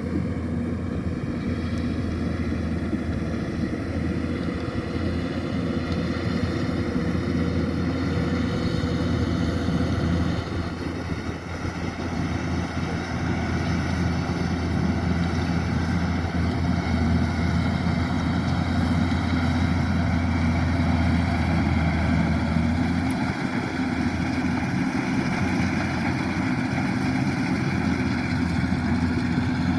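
Kubota DC-105X rice combine harvester's diesel engine running steadily under load as the machine cuts rice, with a brief dip in level about a third of the way through.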